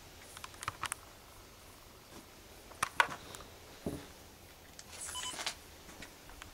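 Scattered small clicks and taps from handling and movement: a quick cluster near the start, two sharp clicks about three seconds in (the loudest), a soft thud just before four seconds, and a short scuffing rustle about five seconds in, over faint room hiss.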